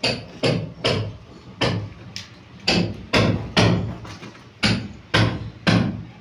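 Hammer blows, about ten sharp strikes in uneven groups of two or three, each with a short ringing tail.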